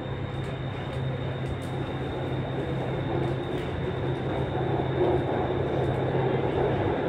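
Metro train heard from inside the car while running: a steady low hum of the car with wheel and rail noise, growing louder in the second half.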